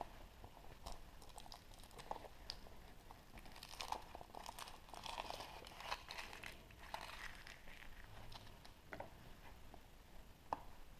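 Faint crinkling and crackling from a surprise egg being unwrapped and opened by hand, with scattered sharp clicks. It is busiest through the middle, with a few single clicks near the end.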